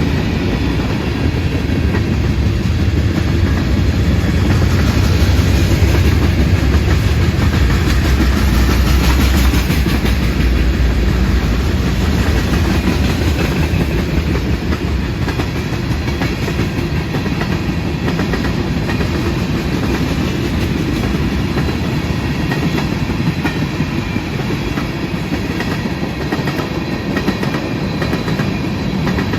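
CSX freight train rolling past, its cars rumbling steadily on the rails, a little louder a few seconds in and then even.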